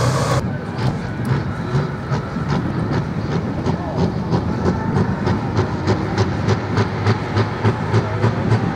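A heavy engine running at low speed, with a steady low hum and a regular pulsing of about three beats a second.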